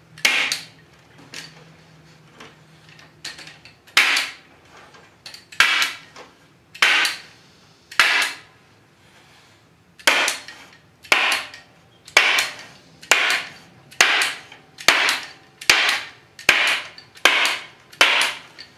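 Hammer tacker driving staples through mesh screen into a wooden frame: a series of sharp smacks, spaced unevenly at first, then a steady strike about every second through the second half.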